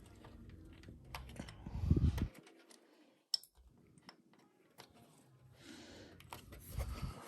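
Handling noise: scattered light clicks and rustling, with a low bump about two seconds in and another near the end.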